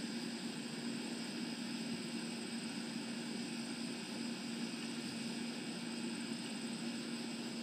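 Steady background hum over an even hiss, with one constant low tone and no distinct events.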